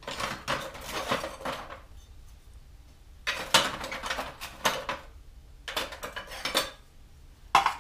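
Pottery ribs and other hand tools clattering and clinking against each other as a homemade rib is picked out from among them, in four spells of rattling with a sharp clink near the end.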